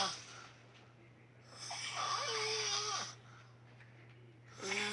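A man snoring in his sleep after drinking tequila: one long, rough, pitched snore about a second and a half in that lasts about a second and a half. The tail of one snore ends at the start, and the next begins near the end.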